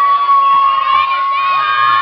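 A crowd of many high young voices cheering and screaming, with long high-pitched shrieks held and overlapping.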